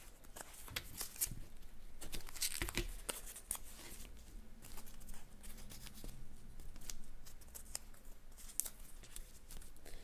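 Magazine paper being torn into small scraps and handled, giving irregular soft tearing and crinkling.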